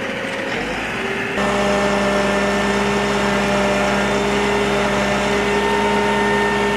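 Fire brigade turntable ladder truck's engine running steadily at idle with a constant hum. It gets louder and closer from about a second and a half in.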